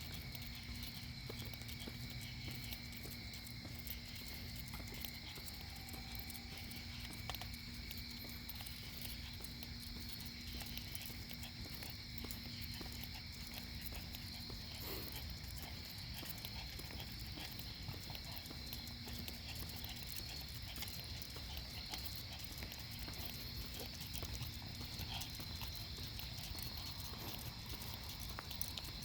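Night ambience: a steady, continuous chorus of insects such as crickets, with the light scattered clicks of footsteps and a faint low steady hum underneath.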